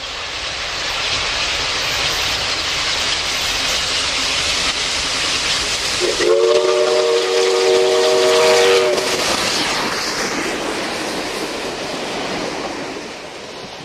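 New South Wales 59 class steam locomotive 5910 running past at speed with a steady rush of steam and wheel noise. Its whistle sounds one long chord of three notes about six seconds in, lasting nearly three seconds, and then the carriages roll by.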